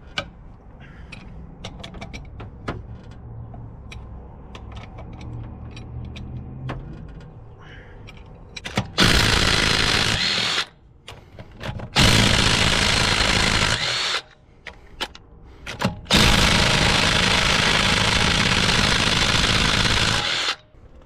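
Cordless drill with a socket spinning loosened lug nuts off a car wheel. It runs three times, briefly about nine and twelve seconds in and longest near the end, after some faint clicking and handling of the tool.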